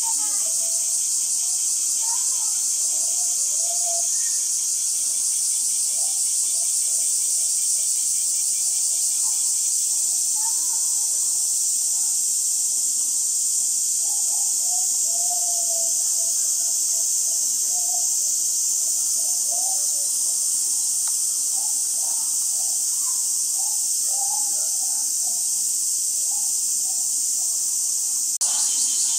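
A steady, high-pitched insect chorus of crickets or cicadas runs without a break, with faint voices murmuring underneath.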